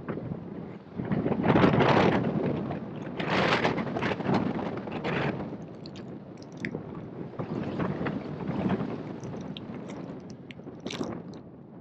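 Airflow buffeting the microphone of a camera mounted on a hang glider in flight: a rushing wind noise that surges and fades every second or two, with a few faint ticks.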